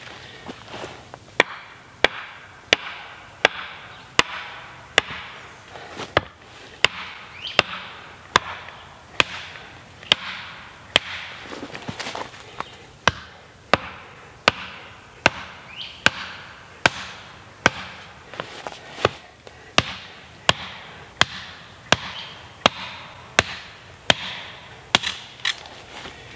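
A hatchet pounds the top of an upright wooden pole, driving it into the ground. The sharp wooden knocks come at a steady pace of about three every two seconds.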